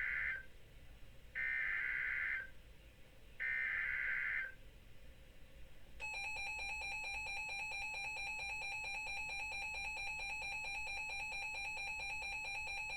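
Emergency Alert System SAME header: the end of one burst of screechy digital data and two more, each about a second long with a second's gap. About six seconds in, the EAS two-tone attention signal starts and holds steady. Together they announce an incoming weather warning.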